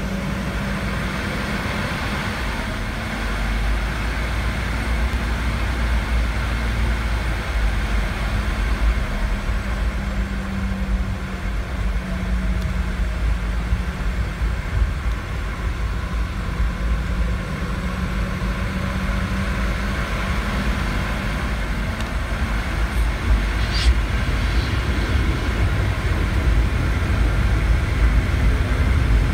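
Cabin noise of a Boeing 717-200 taxiing, heard from a window seat: the rear-mounted Rolls-Royce BR715 turbofans run at low power with a steady hum over a low rumble from the rolling gear. It grows louder near the end as the jet turns onto the runway, and there is one brief high click about three-quarters of the way through.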